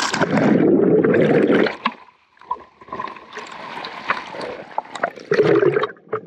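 Seawater splashing and bubbling around an action camera as it plunges through the sea surface and bobs in and out of the water, loudest in the first couple of seconds, with a second splash near the end.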